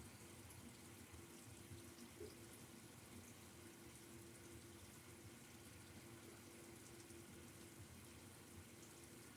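Near silence: room tone, a faint hiss with a faint steady hum.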